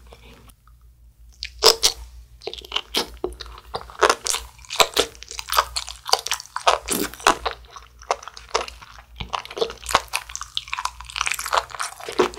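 Close-miked crunching and chewing of a Buldak spicy stir-fried noodle wrap. Crisp bites come in quick succession, starting about one and a half seconds in.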